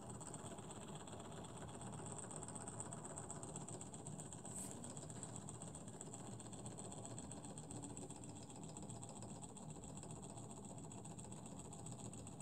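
Small brass model Stirling engine running steadily, its tandem crankshaft gears and linkages making a fast, even, faint ticking clatter.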